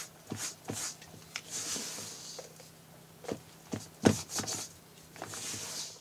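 Wooden spoon stirring and scraping sticky pizza dough in a stainless steel mixing bowl, with irregular knocks of the spoon against the bowl, the loudest about four seconds in, and rasping scrapes between them.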